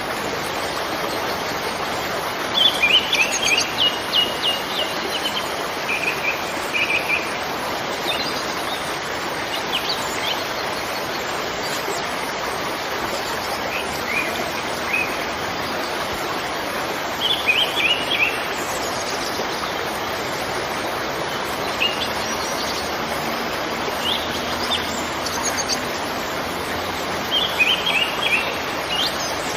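Steady rushing of a waterfall, with small birds chirping in short runs every few seconds over it.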